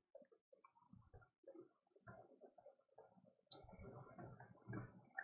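Faint clicks and taps of a stylus writing on a tablet screen, with a sharper click about three and a half seconds in.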